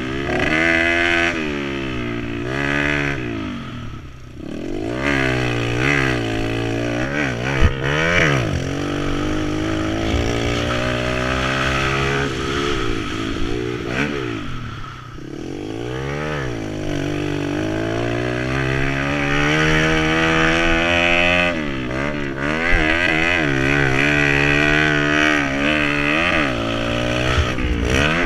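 2010 Kawasaki KLX110L pit bike's small air-cooled four-stroke single revving up and down through the gears on a dirt track, the pitch climbing and falling over and over. The throttle is shut twice, about 4 and 15 seconds in, before it revs back up. Two sharp knocks come about a third of the way through.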